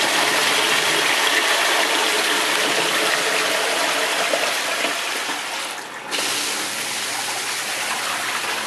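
Steady rush of water gushing in a basement sump pit as the sump pump works flat out against floodwater pouring in. The rush briefly thins about six seconds in, then carries on.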